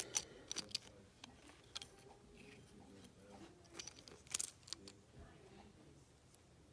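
Scattered small clicks and taps of a die-cast toy car's metal and plastic parts being handled, a few close together at first and a couple more later.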